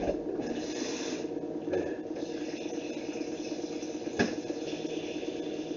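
A steady low rumble with a fine flutter in a small kitchen, with a light knock at the start and a sharp knock about four seconds in as things are handled on the counter.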